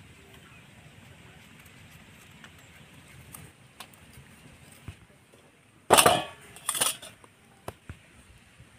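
Faint scraping of a knife peeling ginger, then two short, loud clatters against steel dishes about six and seven seconds in.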